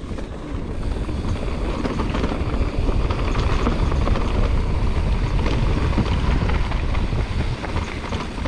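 Wind buffeting a chest-mounted action camera's microphone, mixed with tyre rumble and rattling from a mountain bike descending a rough trail at speed. The rumble grows louder over the first few seconds and is loudest in the middle.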